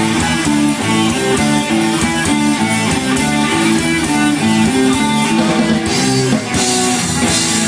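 A band playing guitar-led music, with sustained pitched notes shifting chord by chord. The sound brightens near the end.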